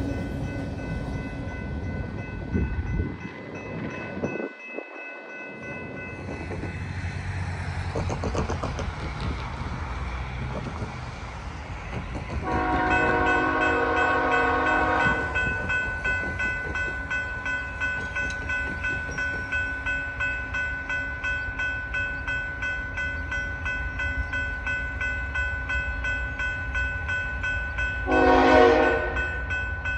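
The tail end of a freight train rolls past over a grade crossing, with rumble and wheel clatter. After a break, an approaching freight locomotive sounds its air horn: one blast of about two and a half seconds around the middle, then a short, louder blast near the end. A steady high ringing, like a crossing bell, runs underneath.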